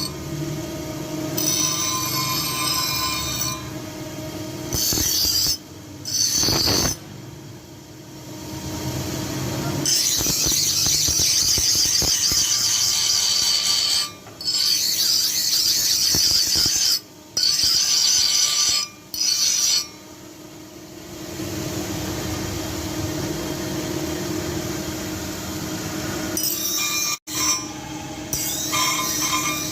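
A steel cobbler's knife blade being ground or sharpened against an abrasive: a harsh scraping noise in stretches of a few seconds that stop and start abruptly, over a steady low hum.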